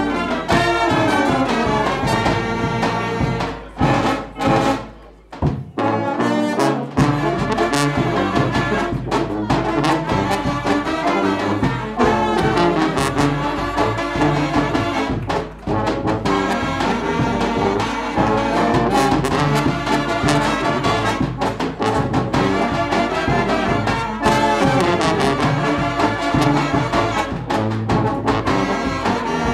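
Balkan-style brass band playing live: trumpets and tuba carrying a fast dance tune. About four to six seconds in the sound briefly thins and drops, then the full band comes back in.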